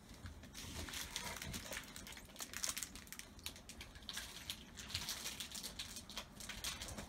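Clumber spaniel puppies moving and pawing at their mother on whelping-box bedding: soft rustling of the fabric with many small, irregular scratchy clicks.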